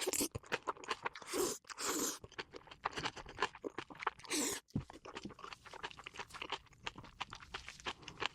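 Close-miked chewing of crunchy food: many quick, irregular crunches and wet mouth sounds.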